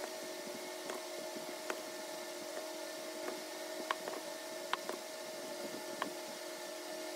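A steady hum with a few faint constant tones, and a handful of light, irregular clicks as a hand injector pushes liquid plastisol into a clamped aluminium soft-plastic bait mould.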